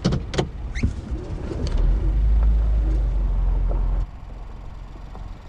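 Vehicle travelling on a rough dirt campground road: a few sharp knocks and rattles, then a heavy low rumble that stops abruptly about four seconds in.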